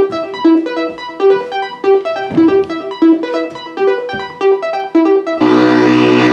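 Background music: short pitched notes in a quick repeating pattern, then about five seconds in a louder steady droning chord cuts in and holds.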